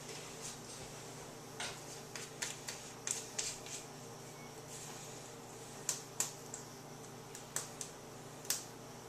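Scattered light clicks and taps, about a dozen, from things being handled in a kitchen, over a faint steady hum.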